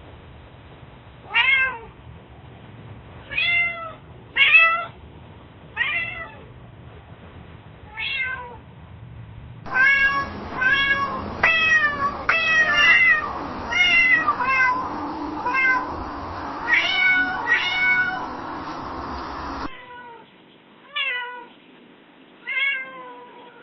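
Domestic cat meowing repeatedly, in three separate recordings. First come about five meows a second or two apart, then a quick run of about a dozen meows, then a few more spaced meows.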